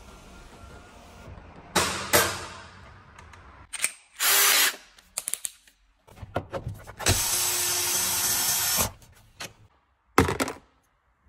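Cordless drill-driver undoing the seat's mounting bolts, running in short bursts: one of about half a second, then a steady run of about two seconds, with clicks and knocks between. A sharp clatter comes near the end.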